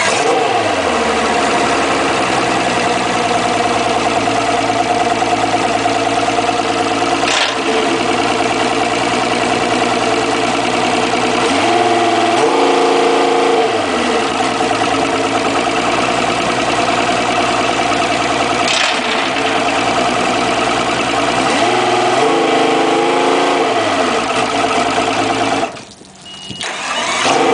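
Outboard motors with their cowlings off, running on garden-hose flushing water: a steady idle that is revved up and let back down twice. Near the end the sound cuts out for about a second and the engine starts again.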